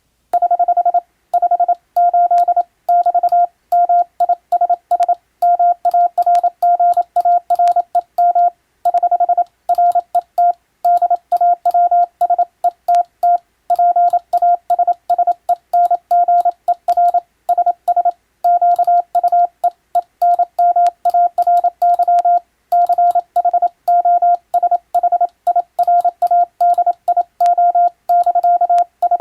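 Morse code (CW) telegraphy being sent: a single steady beeping tone keyed on and off in fast dots and dashes, with brief pauses between characters and words.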